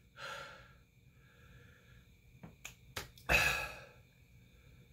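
A man blowing out hard breaths through his mouth, the loudest about three seconds in, with a couple of small mouth clicks between: panting against the burn of a spoonful of extremely hot sauce.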